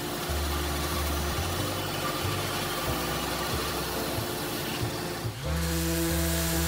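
Bandsaw running as its blade cuts narrow knife slots into a walnut block, with background music. About five seconds in it gives way to a Festool random orbital sander running steadily.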